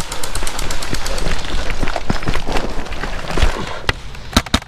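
Footsteps and gear clatter of an airsoft player running on a forest floor, heard close on a helmet camera: a dense run of irregular knocks and rustles. A few sharp cracks come in quick succession near the end.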